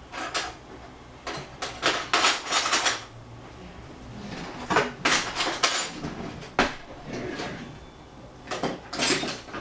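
Dishes and cutlery clattering in several short bursts.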